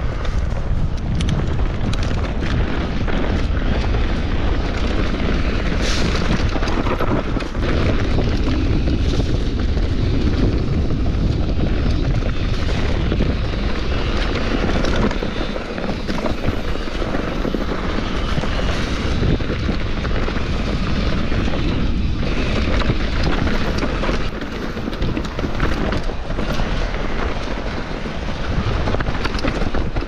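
Wind rumbling on the microphone of a mountain bike riding a rough trail, with tyre noise and frequent knocks and rattles from the bike over the ground.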